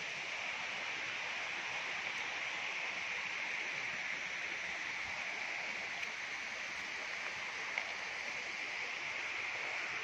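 Steady rushing of a stream, an even hiss that doesn't change, with one brief tick late on.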